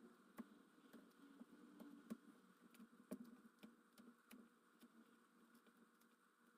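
Faint, irregular small clicks and light taps of hand tools working on a smartphone's parts, over a low steady room hum.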